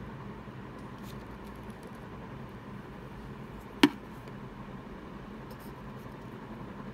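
Steady low room hiss with one sharp tap about four seconds in as a felt-tip marker meets the paper, followed by faint marker strokes as a figure is written.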